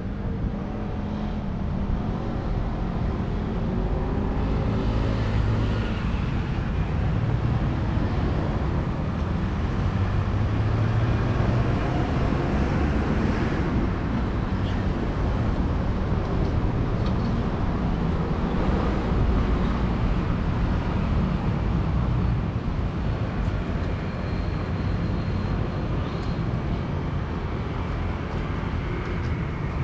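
Street traffic noise: a low, steady rumble of passing vehicles that swells a few seconds in and eases off a little near the end.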